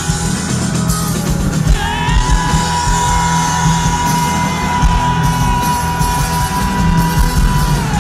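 Rock band playing live, with one long held high note from about two seconds in until near the end.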